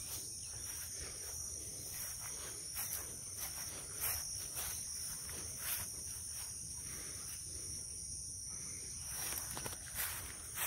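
Steady, shrill chorus of insects such as crickets, holding two high pitches throughout, with scattered soft rustles and steps through leafy vegetation.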